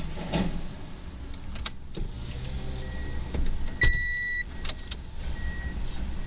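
Komatsu hydraulic excavator working on a building demolition: a steady low engine rumble with several sharp metal clanks, and a brief high-pitched tone about four seconds in.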